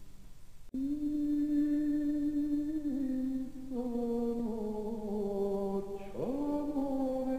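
Slow, droning background music of long held, chant-like notes that step to new pitches every second or two. There is a brief break just under a second in, and a rising slide in pitch about six seconds in.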